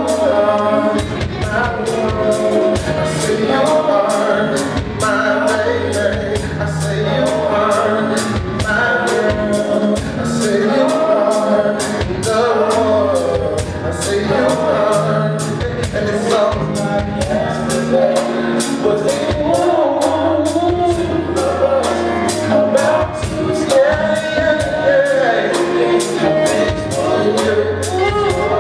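A live band playing a slow song with singing over a steady bass line and evenly spaced cymbal ticks.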